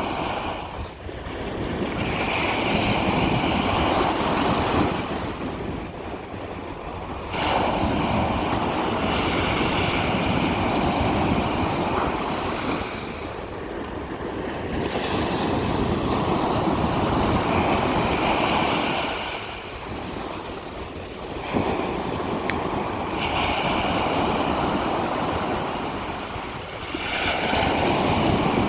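Ocean surf breaking on a beach: waves swell, crash and wash in, then ebb, about every six to seven seconds, with a few crashing in suddenly.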